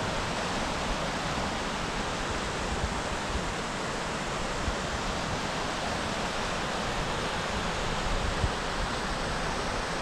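Steady rush of a small mountain creek's flowing water.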